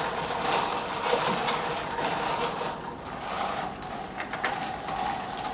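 Ice clinking and rattling in a plastic cup as iced coffee is stirred with a spoon, over a steady hum.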